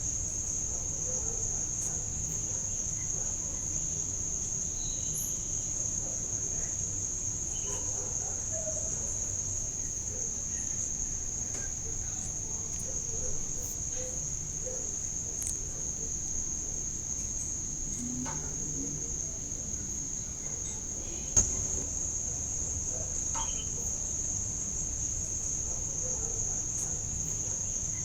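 Insects trilling in one steady, unbroken high-pitched drone. A single sharp click sounds about 21 seconds in, with a low rumble and a few faint ticks underneath.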